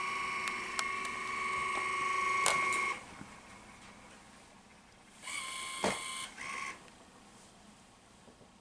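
Burette drive motor of a Metrohm 716 DMS Titrino dosing sodium hydroxide titrant during an automated acid-base titration. A steady whine cuts off about 3 seconds in, then a shorter run follows about 5 to 7 seconds in with a click in the middle: the titrant is being added in increments.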